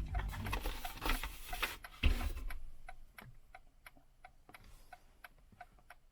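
Hazard flasher clicking in a steady, even tick-tock with the four-way hazard lights switched on. It is preceded by rustling and a sharp knock as the dash trim is handled.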